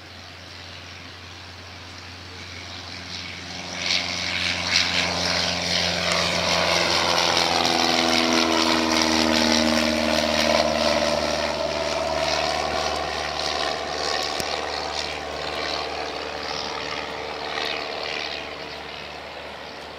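Cessna 172N Skyhawk II's four-cylinder Lycoming piston engine and propeller as the plane flies past low and climbs away. The sound swells from about two seconds in and is loudest in the middle. Its pitch drops as the plane passes, and it fades near the end.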